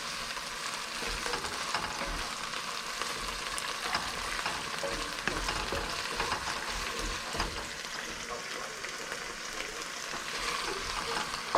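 Food sizzling in a hot frying pan while it is stirred, with a steady frying hiss and scattered short clicks and scrapes of a utensil against the pan.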